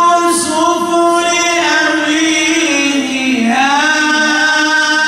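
A man reciting the Quran in a slow, melodic chanted style, drawing out one long held note. The pitch sinks lower about three seconds in, then climbs back and holds again.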